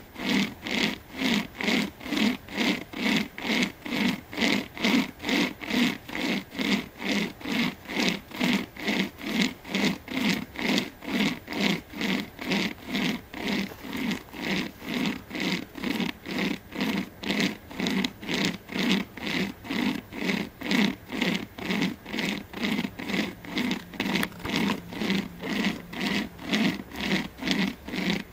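Hand-pulled chain saw cutting through a pine trunk: a steady rasping stroke about twice a second as the chain is drawn back and forth through the wood.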